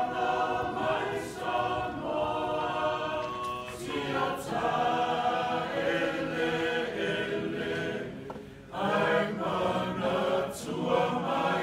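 A large group of voices singing unaccompanied in harmony, Samoan choral singing, with a short break a little after eight seconds in before the singing starts again.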